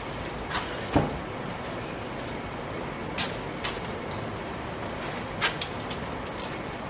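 A handful of short, sharp clicks and knocks, the loudest about a second in, over a steady hiss: tools and parts being handled during a gearbox oil filter change.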